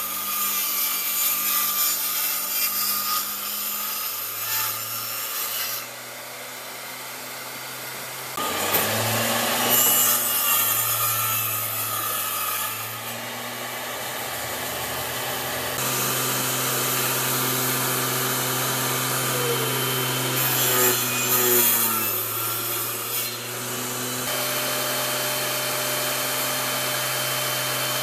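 Table saw running with a steady motor hum while wooden boards are fed through the blade, cutting noise coming and going with each pass.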